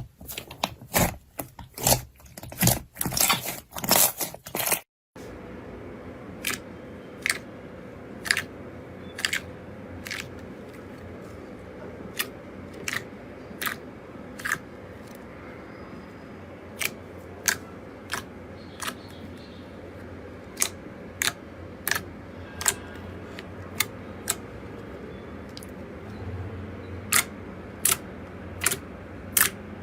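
Slime being pressed and worked with the fingers, making crisp clicking pops. For the first five seconds there is dense crackling; after a short cut, single sharp pops come about one or two a second.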